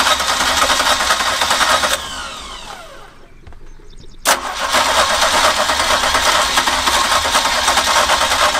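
A boat's engine being cranked over by its starter without catching, twice. The first crank is let go about two seconds in and the engine spins down with falling whines. A sharp click comes just after four seconds in, then a second crank that cuts off near the end. It is a restart attempt after the engine died at idle.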